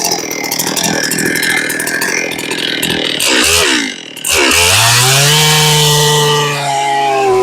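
Chainsaw on a chainsaw mill running. About three seconds in its pitch drops and rises, the sound dips briefly, and then the engine revs up to a steady high speed.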